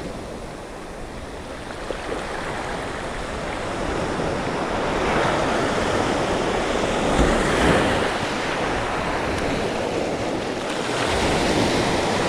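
Surf breaking and washing up a pebble beach, swelling several times as waves come in, with wind rumbling on the microphone.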